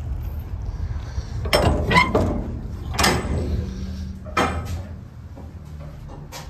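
Steel shipping-container door being unlatched and swung open: several sharp metallic clanks from the locking bars and handles, the loudest about one and a half to three seconds in. A tractor engine idles steadily in the background.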